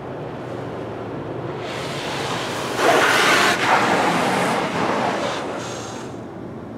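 High-pressure water jets from a PDQ LaserWash 4000 touchless car wash sweeping over the car, heard from inside the cabin. The spray swells to a loud hiss as it passes over the car about three seconds in, then fades away, over a steady background rumble from the wash.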